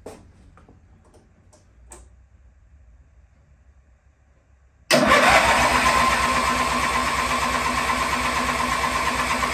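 A few faint clicks, then about five seconds in a garden tractor's twin-cylinder petrol engine is turned over by its electric starter, cranking steadily in an even pulsing rhythm without catching. There is no spark, a fault later traced to the kill-switch feed wire.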